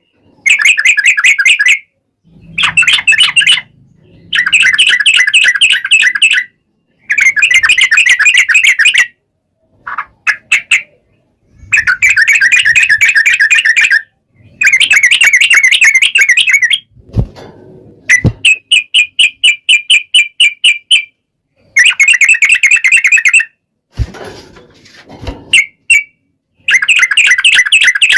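Yellow-vented bulbul (trucukan) singing loud, rapid chattering phrases, each about one to two and a half seconds long, repeated over and over with short pauses between them.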